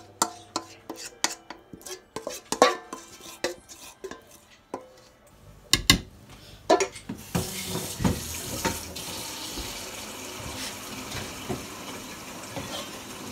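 A spatula scraping and tapping the inside of a stainless steel mixing bowl, several quick strokes a second with the bowl ringing, as batter is cleared out. A few louder clanks follow about six seconds in, then a steady rush of water like a running tap fills the rest.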